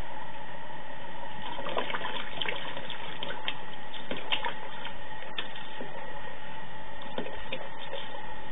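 Tap water running in a thin steady stream into a plastic watering can standing in a sink, with scattered short splashes as a cat paws and pushes its head into the stream.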